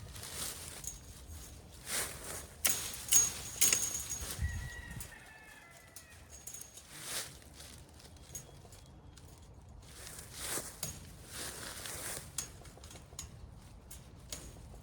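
Scattered sharp metallic clicks and rattles of fence wire and T-post clips being handled and fastened to a T-post during fence repair. A bird calls briefly about four to five seconds in.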